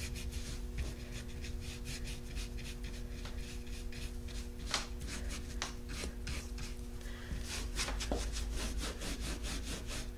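Round wax brush scrubbing dark soft wax into a textured frame surface: quick, irregular bristle strokes rubbing and scratching, worked hard to push the wax down into the crevices.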